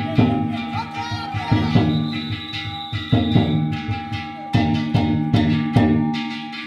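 Music with plucked strings played in a steady rhythm of sharp, decaying notes.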